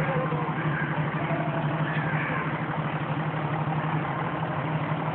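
A motor running steadily, with a constant low hum over a haze of background noise.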